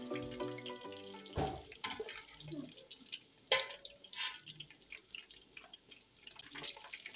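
Chicken pieces frying in hot vegetable oil in a large aluminium pot: a dense crackling and spattering as they are turned with a slotted metal spatula, with one sharp knock of the spatula against the pot midway.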